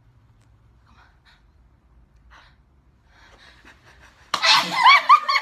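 A person sneezing: a sudden loud sneeze about four seconds in, after a few seconds of faint sounds, followed by high-pitched voices.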